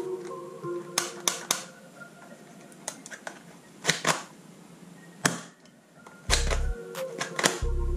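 Sharp plastic clicks and clacks of a toy pistol being handled, in small groups a second or two apart, over soft background music. Two short low booms come near the end.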